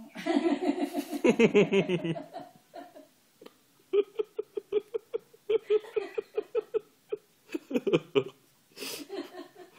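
An elderly woman laughing in several bouts of quick, evenly spaced pulses, with short pauses between the bouts.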